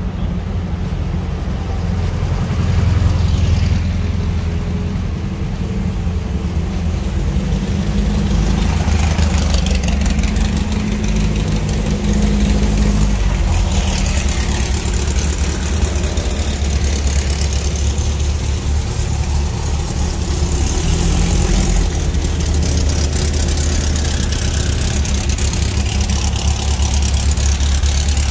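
Engine running at idle close by, a steady low rumble, with other cars driving past.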